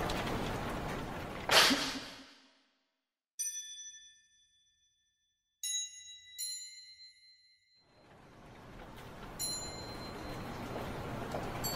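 Film sound design: a sharp, loud hit, then dead silence broken by about five bell-like chime strikes, each ringing and fading. Background noise returns about two-thirds of the way through, under the last two chimes.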